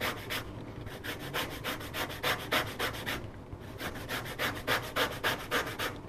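Microplane zester grating the rind of a lemon: quick repeated rasping strokes, about four or five a second, with two short pauses.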